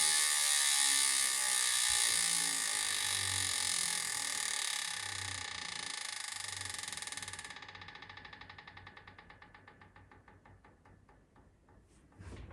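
Chris King ISO hub on an ENVE M9 30 mountain bike wheel, freewheeling: a high, even freehub buzz that fades as the wheel slows. It breaks up into separate ratchet clicks, growing slower and fainter as the wheel coasts toward a stop. A short knock comes near the end.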